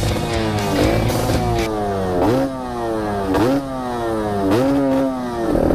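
Yamaha 125Z's 125 cc two-stroke single-cylinder engine revving as the bike sets off, heard from on board: the pitch jumps up sharply four times, about once a second, and sags away after each jump.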